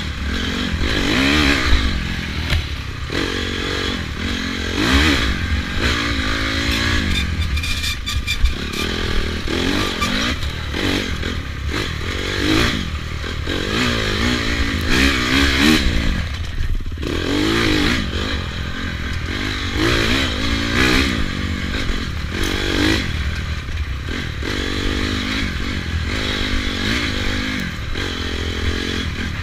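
Dirt bike engine ridden hard on a rough trail, revving up and dropping back over and over as the throttle is worked. Clattering and knocks from the bike over the bumps sound along with it.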